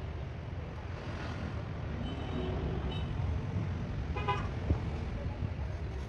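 Steady low outdoor background rumble, with a short high-pitched tone about four seconds in.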